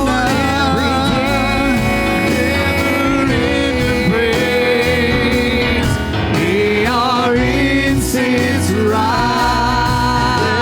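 Live gospel worship band playing a song, with held, wavering melody notes over a steady bass line.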